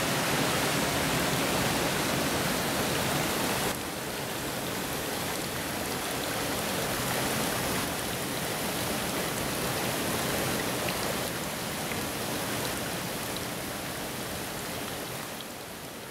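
Steady rush of a small mountain stream, then, after an abrupt drop in level about four seconds in, a quieter steady splashing of water pouring from a pipe spout into a stone basin, with a few faint drips, fading out at the end.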